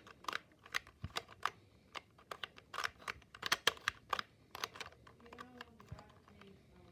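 LEGO sliding-puzzle tiles being slid and shuffled by hand: a quick, irregular run of small plastic clicks, thinning out after about five seconds.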